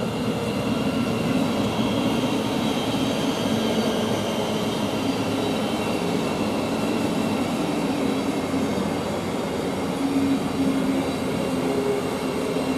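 Thameslink Class 700 electric train running through the station platform: a steady rail running noise with faint whining tones.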